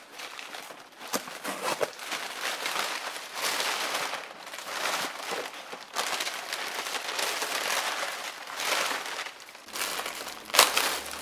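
Irregular crinkling and rustling of plant-shipping packaging and sphagnum moss being handled during unpacking, with a sharp snap near the end.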